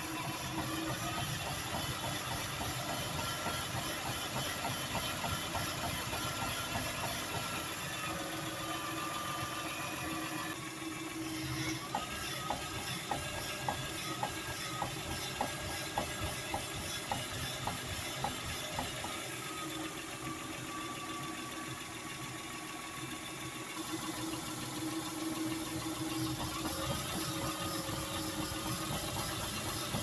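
Toyota Sienna minivan engine idling, with a whine that slowly rises and falls in pitch. Through the middle there is a run of light, evenly spaced ticks lasting a few seconds.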